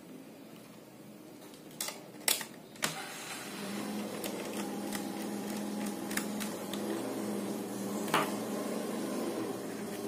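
Sharp clicks and taps of a screwdriver and plastic laptop parts being handled: three close together about two seconds in and a single one near the end. A steady low hum comes in after about three seconds.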